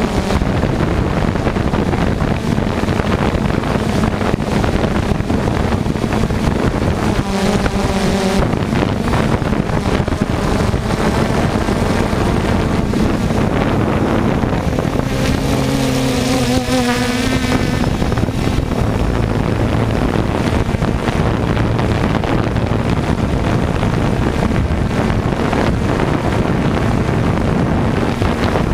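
Small quadcopter drone's electric motors and propellers buzzing steadily, heard from the drone's own camera. The pitch wavers as the motors speed up and slow down while it manoeuvres, briefly about a quarter of the way in and again a little past halfway, with some wind on the microphone.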